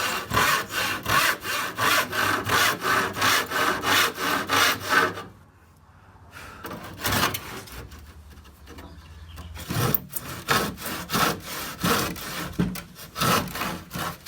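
Handsaw cutting wood with a quick, even rhythm of back-and-forth strokes. The sawing stops about five seconds in and picks up again about four seconds later.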